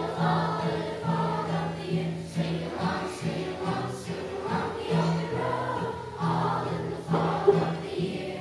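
A children's choir singing a song in unison, accompanied by an acoustic guitar.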